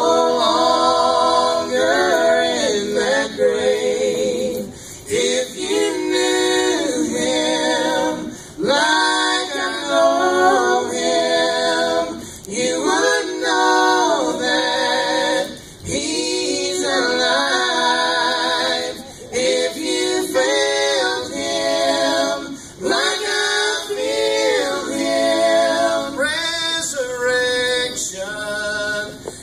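A family gospel group singing a gospel song into microphones, a woman's voice together with men's voices, with long held notes and short pauses between phrases.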